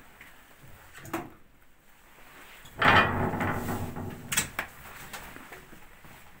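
Metal being handled on a stopped old marine diesel engine during its pre-start checks: a light knock about a second in, then a louder scraping, rattling clatter lasting about a second and a half that ends in a sharp knock.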